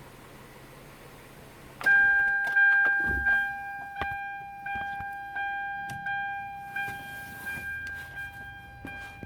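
A car's electronic warning chime sounding continuously from about two seconds in, one fixed pitch re-struck roughly every second, over the engine idling.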